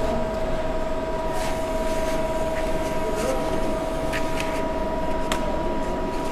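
Steady machine hum with a constant two-note whine from a powered-on CNC turning lathe. A few faint clicks come about four and five seconds in.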